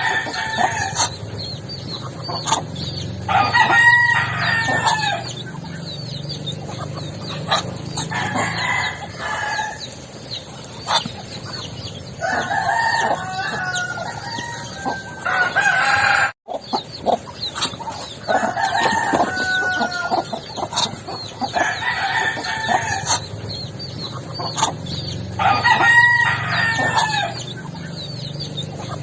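Backyard chickens: roosters crowing about seven times, one call every few seconds, with clucking and small chirps between the crows. The sound drops out briefly about halfway through.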